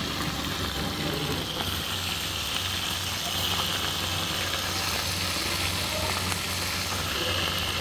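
Pieces of tilapia deep-frying in hot oil in a wok, a steady sizzle over a low steady hum.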